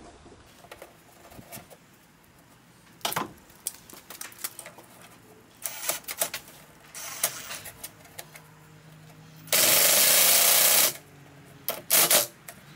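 Knocks and scrapes of a PVC pipe fitting being handled and pushed over a jointer's dust chute, then a Ryobi cordless drill-driver runs steadily for about a second and a half, tightening the hose clamp on the fitting, followed by a couple of short clicks near the end.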